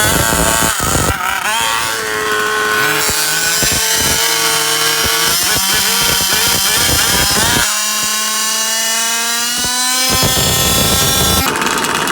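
Small two-stroke gasoline engines of large-scale RC cars revving hard and rising in pitch as they accelerate, dropping off about two-thirds of the way through and then climbing again.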